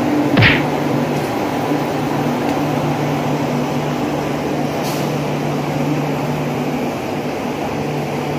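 Steady low drone of a train's engine running, with a brief high squeal about half a second in and a faint click near five seconds.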